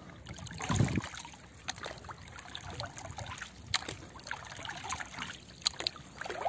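Water splashing and lapping around a small wooden boat, with scattered small splashes and a dull thump about a second in.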